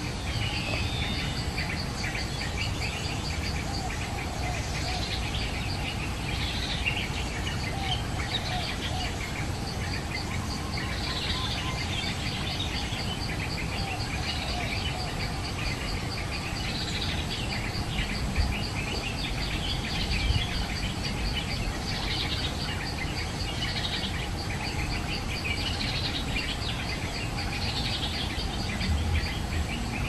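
Small birds calling in short downward-sliding notes every couple of seconds over a steady, rapidly pulsing insect trill.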